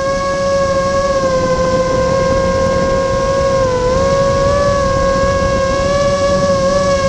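Vortex 250 Pro FPV racing quadcopter's motors and propellers whining steadily at one pitch while it flies, with a brief dip in pitch about four seconds in.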